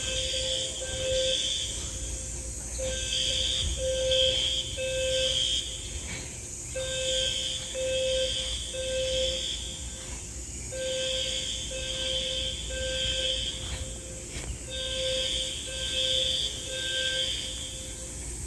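Fire alarm sounding the temporal-three evacuation pattern: three beeps, then a pause, repeating about every four seconds.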